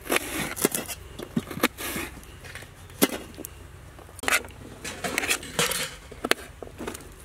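Kitchen knife chopping red onion on a steel plate: irregular, sharp taps of the blade hitting the metal, with short scrapes in between.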